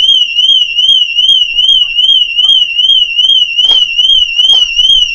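Car alarm siren going off after a break-in, a single high tone warbling rapidly and evenly up and down without a break. A few faint knocks sound underneath, one clearer about three and a half seconds in.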